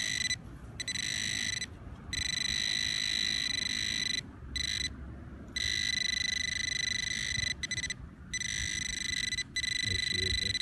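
Metal-detecting pinpointer sounding a steady high buzzing tone that cuts in and out, in stretches of about a half second to two seconds, as its probe is moved through the loose dirt of a dug plug. The tone signals a metal target close to its tip, here a green-corroded coin.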